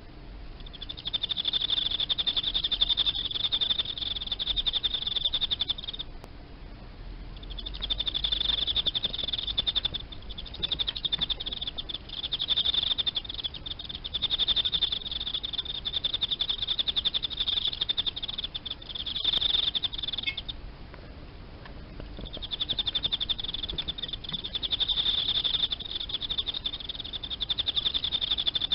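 Male Teleogryllus field cricket (the Emma field cricket group) singing: a high, rapid trilling chirp in long runs of several seconds, breaking off briefly twice.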